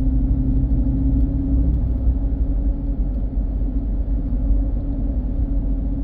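Steady low rumble of road and engine noise heard inside a moving car's cabin, with a steady low hum under it.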